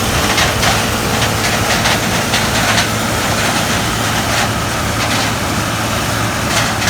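Gleaner combine harvesting corn: its engine running steadily under load, with frequent short crackles over the hum.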